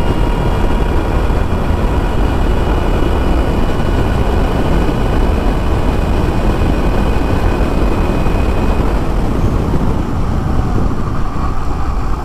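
Loud, steady wind and road rush on the camera microphone of an Ultraviolette F77 electric motorcycle running at about 120 km/h, with a faint, steady high whine. The whine fades about nine seconds in, and the rush eases near the end as the bike slows.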